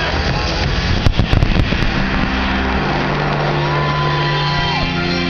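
Large fireworks display bursting in a dense barrage, with a quick cluster of sharp cracks about a second in. Held musical notes of the show's soundtrack come in under the noise about halfway through.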